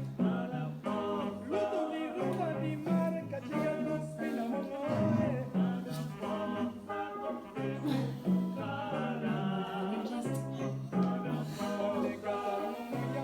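Music with a singing voice over a repeating bass line.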